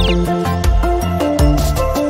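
Intro theme music with a steady drum beat and a moving bass line. A short falling chirp sounds right at the start.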